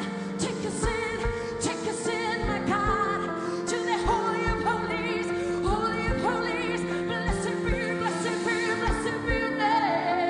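Live worship band playing a slow song, with a woman singing the lead with vibrato over held chords and a steady drum beat.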